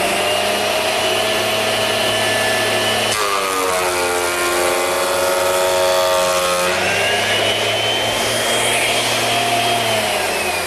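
Thickness planer running with a steady whine. About three seconds in, a walnut board feeds through the cutterhead and the pitch drops under the cutting load for about three and a half seconds, then the unloaded whine returns as the board clears. Near the end the whine falls away as the machine winds down.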